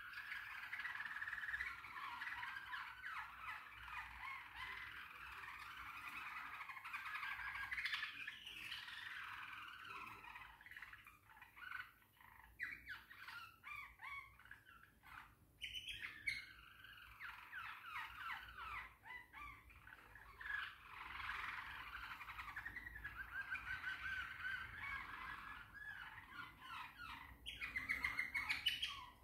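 A small caged songbird singing a long, warbling song of rapid chirps and trills. Midway the song breaks into scattered separate chirps, then resumes, with a louder, fast trill near the end.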